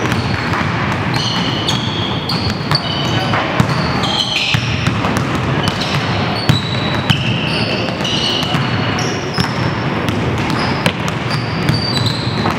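Basketballs bouncing on a hardwood gym floor as several players dribble, with frequent short high-pitched sneaker squeaks on the court.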